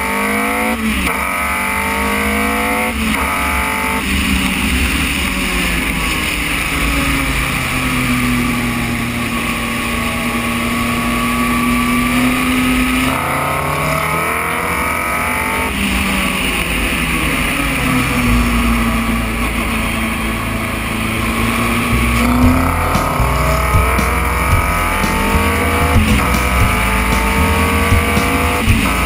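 Onboard sound of a Formula Renault 2.0 single-seater's four-cylinder engine at racing speed. The revs climb in quick rising steps through upshifts near the start, hold steady through long corners in the middle, and climb again toward the end.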